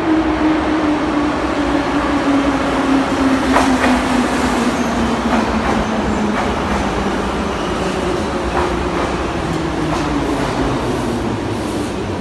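Em-series (81-501/502/503) metro train arriving and braking to a stop. A steady whine falls in pitch as it slows, over a loud rumble, with a few wheel clicks over rail joints.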